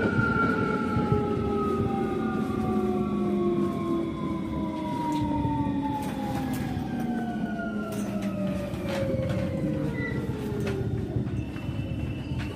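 Tokyo Metro 07 series train's VVVF inverter whine, several tones falling steadily in pitch together as the train brakes into a station, over wheel and track rumble heard from inside the car. The whine drops away about eleven seconds in as the train slows to a crawl.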